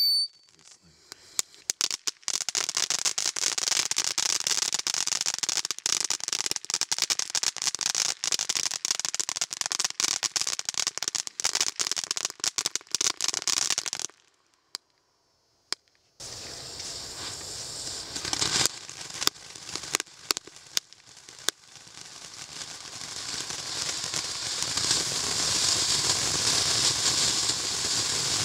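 Ground fountain fireworks spraying. The Whistling Rain fountain's last falling whistle ends right at the start, and it then crackles densely over a hiss until it cuts off about fourteen seconds in. After about two seconds of silence, the Volcanic Eruption fountain hisses and crackles, growing louder toward the end.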